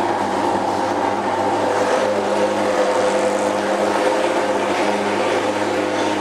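Steady machine hum and hiss: a few fixed tones over an even rush of noise, unchanging in level.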